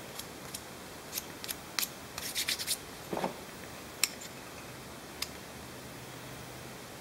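Small hand-handling sounds of a G10 handle scale being test-fitted on a Swiss Army knife: scattered light clicks, a short run of scraping rubs a little after two seconds, a dull knock just after three seconds and a sharp click about four seconds in.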